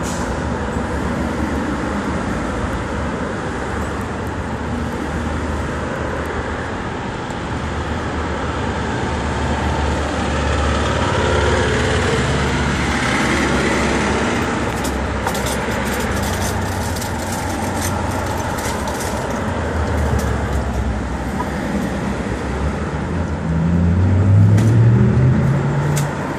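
Steady city street traffic noise from cars passing. Near the end a vehicle engine rises in pitch as it pulls away, the loudest moment.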